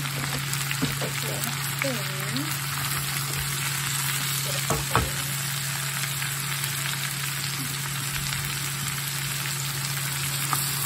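Shredded cabbage sizzling and frying in a cast-iron skillet as it is stirred, a steady hiss over a low hum, with a single sharp knock about five seconds in.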